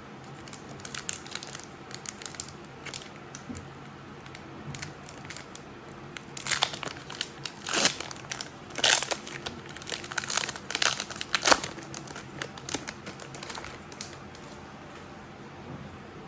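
Pokémon card booster pack's foil wrapper being torn open and crinkled by hand. There are light crackles at first, then a run of loud crinkling and tearing in the middle that fades out near the end.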